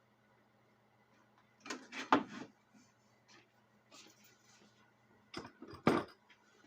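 Several short knocks and clatters of hard objects being handled, a cluster about two seconds in and another, the loudest, near six seconds, over a faint steady hum.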